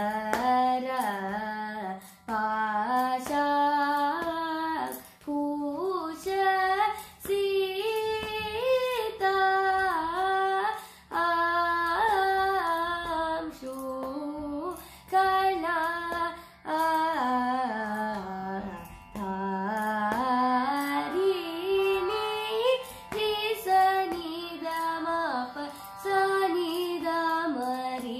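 A girl singing a Carnatic varnam in raga Andolika, solo voice with pitch glides and ornaments, over a steady low drone.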